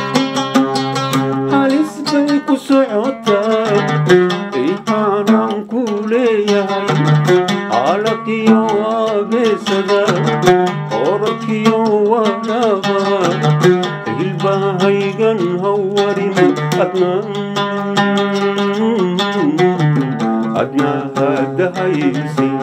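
An oud played in a quick run of plucked notes, with a man's voice singing along.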